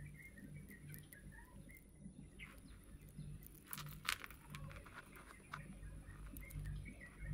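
A few sharp small clicks of pliers jaws on metal bracelet beads about four seconds in, over a faint continuous high twittering and a low steady hum.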